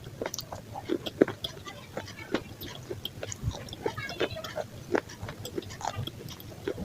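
A person chewing crunchy food close to the microphone: irregular crunches and small wet clicks, several each second.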